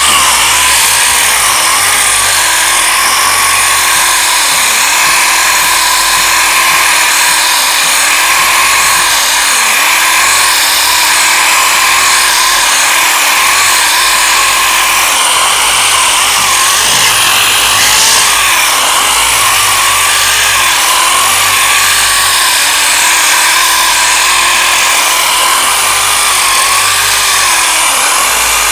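8-inch orbital sander running steadily against body filler: a continuous gritty hiss with a whine that wavers slightly in pitch.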